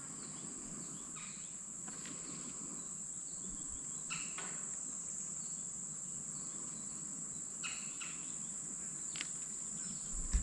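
Steady high-pitched drone of an insect chorus, with a few faint clicks and a brief loud knock right at the end.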